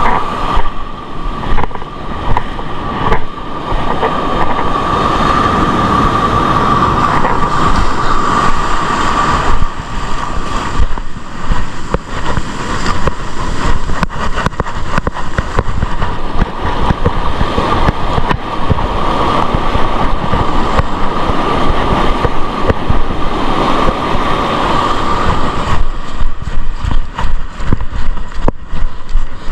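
Strong wind buffeting the microphone on an open beach, with the rush of surf beneath it. A steady, thin whistle-like tone rises and fades within the noise twice.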